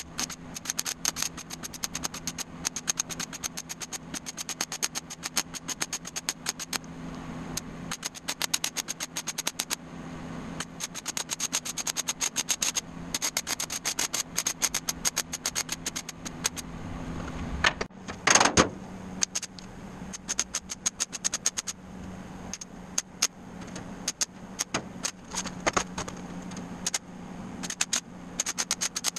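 MIG welding arc on stainless steel sheet crackling in runs of welds that start and stop with short gaps, over a steady low hum. A louder burst comes about eighteen seconds in.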